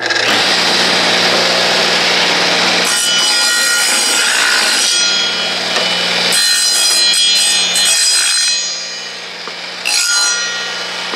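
Wooden ax handle being shaped down, a tool rasping against the wood in long continuous stretches with brief pauses, over a steady pitched hum.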